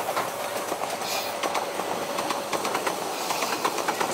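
Rain falling, a dense irregular patter of drops hitting surfaces over a steady hiss.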